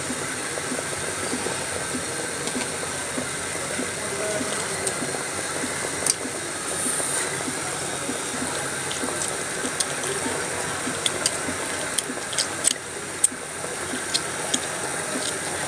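Chicken cooking in milk and lemon juice in a pot, making a steady sizzling hiss with scattered pops and crackles that come more often in the second half. The milk is curdling from the lemon.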